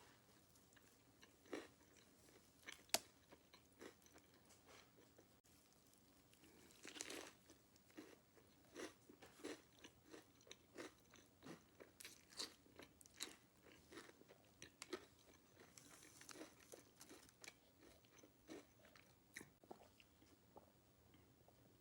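A person biting into and chewing a burrito stuffed with Hot Cheetos: crisp crunches and wet chewing clicks come irregularly, several a second, with a sharp loud bite about three seconds in.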